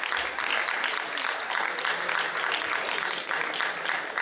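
Auditorium audience applauding steadily.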